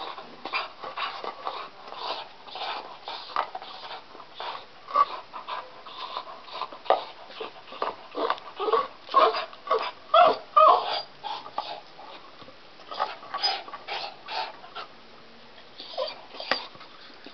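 A deaf dog whimpering and crying in quick runs of short, pitched cries while it bites and gnaws on a log, with a short lull past the middle. Being deaf, it cannot hear its own crying.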